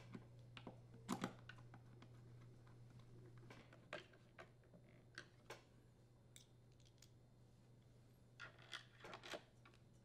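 Screwdriver and screws clicking and tapping against a string trimmer's plastic engine housing as the screws are driven in. The ticks are scattered, with the loudest cluster about a second in and another group of taps near the end.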